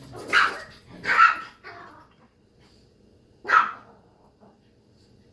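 A dog barking: two loud barks close together near the start, a weaker one just after, and one more loud bark about three and a half seconds in.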